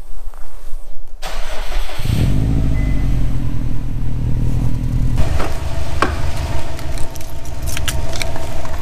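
Subaru WRX STI's turbocharged flat-four cranked by the starter about a second in and catching a moment later, then running at a high cold-start idle that settles a little lower about five seconds in.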